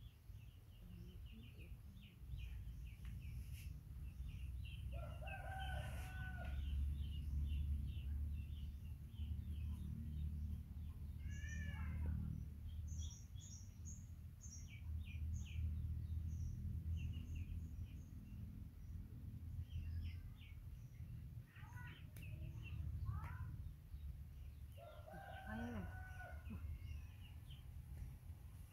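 Roosters crowing several times, with small birds chirping in short high notes and a steady low rumble underneath.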